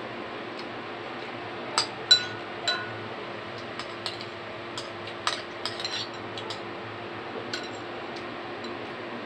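Metal spoon clinking and scraping against a bowl while eating soup: three sharp ringing clinks about two to three seconds in, then lighter taps until past seven seconds.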